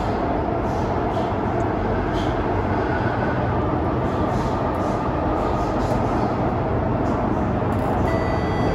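Kawasaki–Nippon Sharyo C751B metro train running through a tunnel, heard from inside the car: a steady rumble of wheels on rail and running gear. Near the end, several steady whining tones come in over the rumble.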